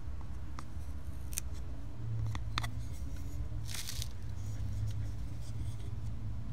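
Clip-point bowie knife cutting a pot-hook notch into a peeled wooden stick: a few small sharp clicks as the blade tip bites into the wood, and a brief scraping shave about four seconds in, over a steady low rumble.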